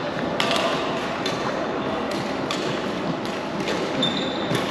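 Badminton rally: rackets striking the shuttlecock with several sharp hits at uneven intervals, roughly every half second to a second, echoing in a large sports hall, with a shoe squeaking briefly on the wooden court near the end.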